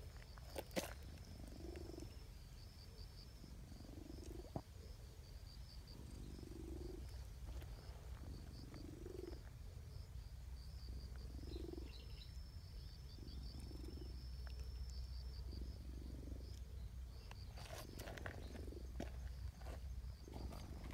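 Domestic cat purring close by while being stroked, a soft rumble that swells and fades with each breath about once a second. Near the end come a few light rustles and clicks of fur and handling.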